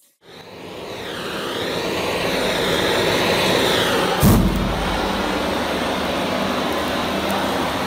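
Oil-soaked tray and padlock burning: a rushing roar of flames swells up over the first few seconds, with a sudden loud whump about four seconds in, then the fire runs on as a steady roar.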